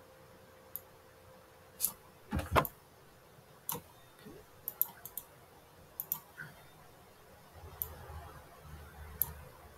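Scattered short, sharp clicks of a computer mouse, about a dozen at uneven intervals, with a louder, duller double knock about two and a half seconds in.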